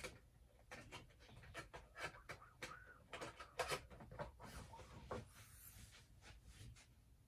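Faint, scattered clicks and rustling from a boxed Funko Pop vinyl figure being handled, its cardboard-and-plastic window box knocking and scraping.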